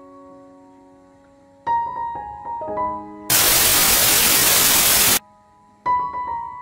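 Background piano music, slow sustained notes. Near the middle a loud burst of static hiss, about two seconds long, blots out the music and cuts off suddenly before the piano comes back in.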